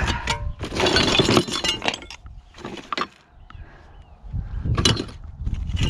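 Hard clinks, knocks and scraping of stone and tools being handled during stonework: a rattling clatter about a second in, then a few single sharp knocks.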